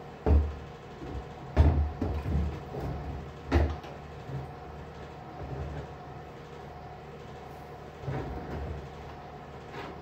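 Handling knocks and bumps as a rusty rifle wrapped in copper wire is moved and set down in a plastic tray: a few dull thumps in the first four seconds and a softer cluster near the end, over a steady faint hum.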